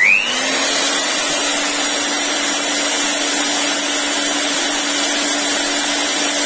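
JAKMISTER 600 W electric air blower switched on: its motor spins up with a quick rising whine, then runs steadily at full speed with a loud rush of air over a steady motor tone.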